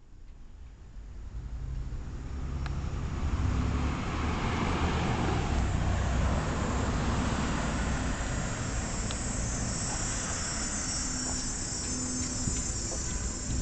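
Steady outdoor ambience of insects chirping over a low rumble, which swells over the first few seconds and then holds; a few faint clicks.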